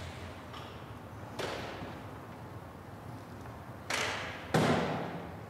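A car door slammed shut with a heavy thud near the end. Smaller knocks come before it, one about a second and a half in and a sharper one just before the slam, as the driver gets out.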